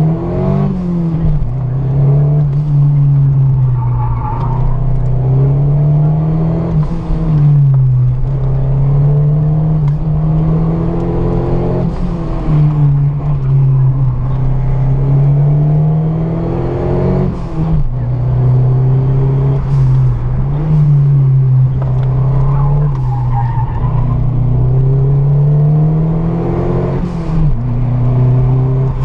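Ford Escort RS Cosworth's turbocharged four-cylinder engine accelerating hard through the gears, heard from inside the cabin. The revs climb in each gear and drop sharply at each shift, several times over.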